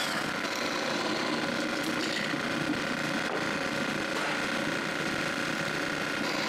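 A power tool running steadily, a continuous whir with a fine rapid mechanical rattle.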